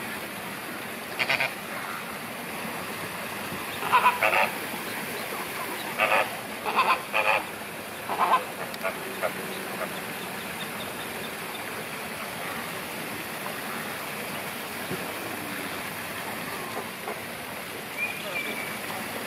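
A flock of flamingos honking: a run of short, loud goose-like calls, some in quick pairs, through the first half, then only a few faint calls over a steady background hiss.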